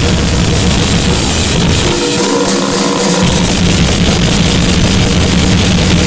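Harsh noise music: a loud, dense, unbroken wall of distorted noise. About two seconds in, the low end drops out for roughly a second and a few steady tones show through before the full wall returns.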